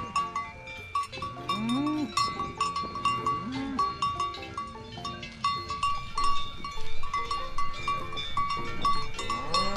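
Cattle lowing, with short calls that rise and fall in pitch and a longer call starting near the end, over a continuous quick clanking of many cowbells.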